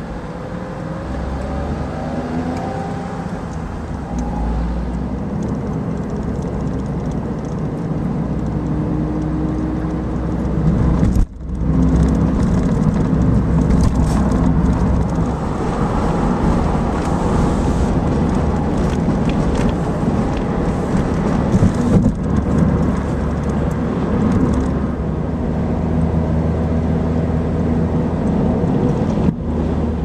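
Car driving at highway speed, heard from inside the cabin: a steady engine hum and tyre and road rumble, with the engine pitch gliding up and down in the first few seconds. The sound cuts out briefly about eleven seconds in, then goes on a little louder.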